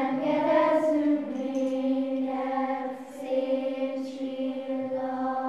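Children's choir singing, led by a conductor. The choir moves through a few notes, then holds one long note through most of the stretch.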